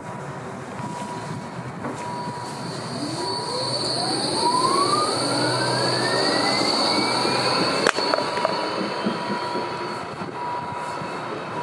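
A new Škoda-built low-floor tram pulls away from a stop. Its electric traction drive whines in a steady rising glide as the tram accelerates, over a steady high tone, with a single sharp click near the end.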